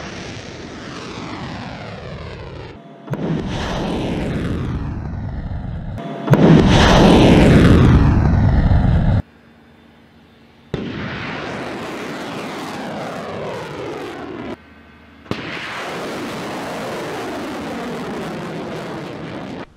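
Missile rocket motors firing at launch, in several separate clips cut together. Each is a loud rushing noise with a sweeping, falling tone as the missile climbs away. The loudest runs from about six to nine seconds in.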